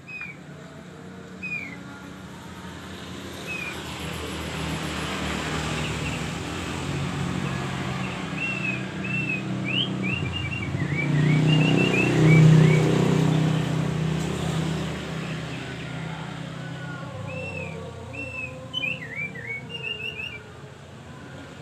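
Opior (white-eye) songbird chirping in short, quick high whistled notes, in clusters near the middle and near the end. A vehicle passing by rises to the loudest sound about twelve seconds in, then fades.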